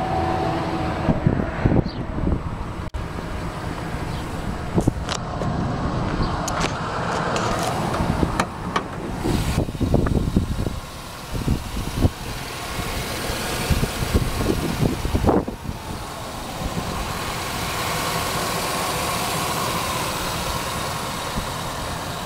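Handling noise around a pickup truck: a run of scattered clicks and knocks with a few sharp strikes, then a steadier noise for the last several seconds.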